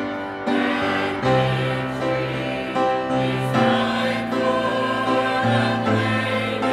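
Church choir singing a gospel hymn in several voices over an accompaniment with held bass notes.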